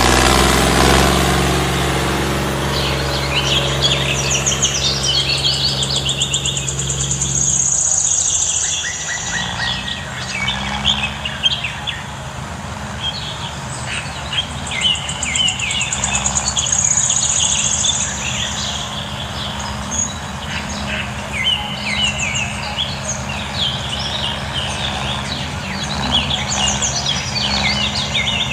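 Birds chirping and twittering in many short, quick calls over a steady low mechanical hum. The hum changes its pitch pattern about eight seconds in.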